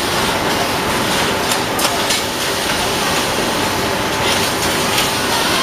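Steady machine din of an automatic washing-powder bag filling and packing line running, with scattered sharp clicks and clacks from its mechanism.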